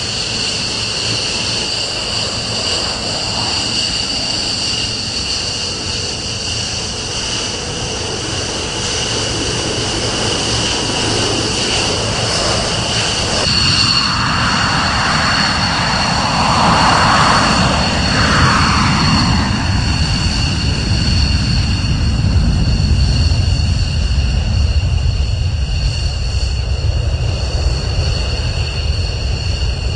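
F-15 Eagle twin turbofan jet engines with a steady high-pitched whine while taxiing. About fourteen seconds in the sound changes abruptly, a jet swells past and fades, and a deep rumble then builds as the engines run up for takeoff.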